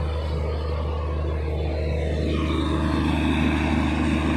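Diesel engine running steadily at idle, a low, even drone with a buzzier layer above it that grows louder about halfway through.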